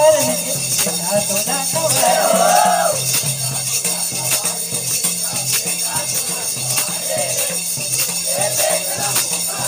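Chhattisgarhi folk dance music with a steady repeating drum beat and a bright shaker-like jingling, which fits the dancers' ankle bells. A melodic line rises and falls about two seconds in and again near the end.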